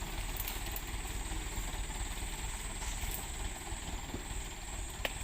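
Truck engine idling with a low, steady rumble under an even high hiss.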